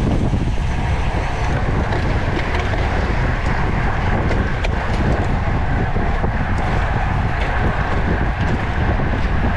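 Steady wind rush on the microphone of a camera riding on a road bike at race speed, with a few faint clicks.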